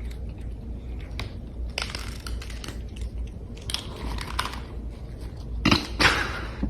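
Crunching chewing noises in several crackly spells with small clicks between them, over a steady low hum.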